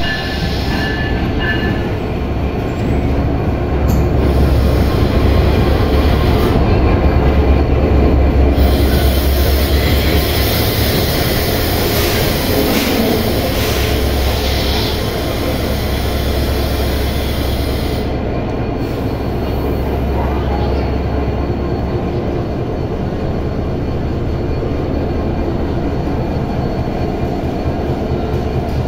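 EMD GT42ACL diesel-electric locomotive running, a steady low rumble throughout. A louder rushing hiss rises over it for about ten seconds in the middle.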